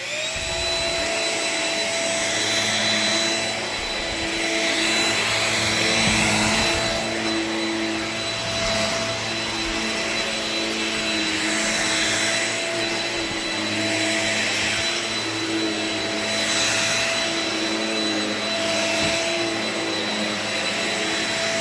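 Shark stick vacuum cleaner switched on, its motor spinning up quickly to a steady whine. Its airflow noise swells and eases every two to three seconds while it runs.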